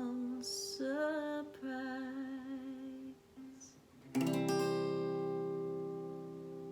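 Acoustic guitar and voice ending a song. A singer holds a final wavering note over the guitar for about three seconds. About four seconds in, a last strummed chord rings out and slowly fades.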